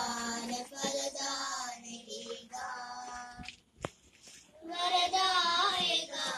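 High voices singing a song in three held phrases with short gaps between them; a sharp click about four seconds in.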